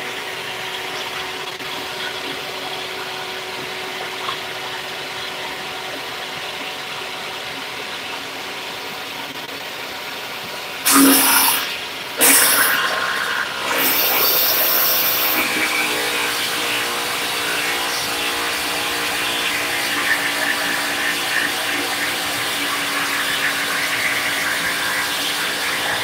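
Table saw running with its blade spinning while cutting aluminum plate. Two loud bursts come about eleven and twelve seconds in as the blade bites into the metal, and the saw then runs a little louder under the cut.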